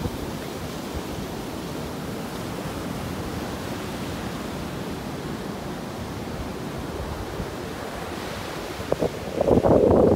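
Surf breaking offshore and washing up the sand around beach boulders, a steady rush of waves with wind on the microphone. A louder rushing burst comes in about nine seconds in.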